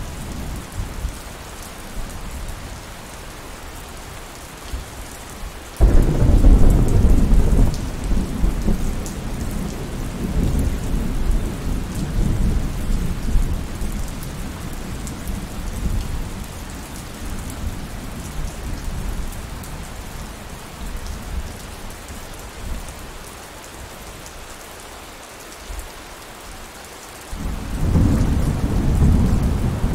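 Steady rain falling, with thunder: a sudden clap about six seconds in that rumbles on and slowly dies away, and a second roll of thunder starting near the end.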